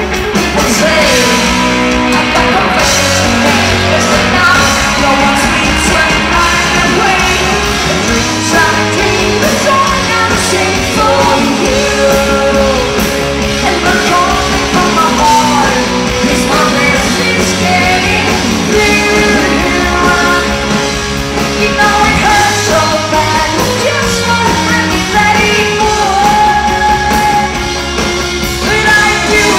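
Loud live rock music: a band with drums and electric guitars playing, and a woman singing over it.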